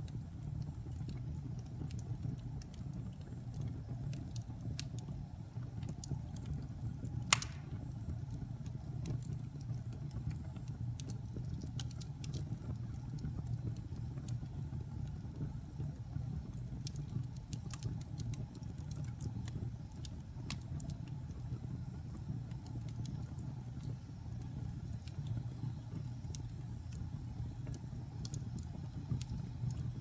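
Wood fire burning in a fireplace: a low steady rumble with scattered crackles, and one loud pop about seven seconds in.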